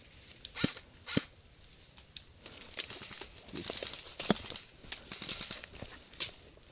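Scattered sharp cracks of airsoft gun shots: two about half a second apart near the start, another around four seconds in and one more near the end. Between them come stretches of crackly rustling like movement through dry leaves and brush.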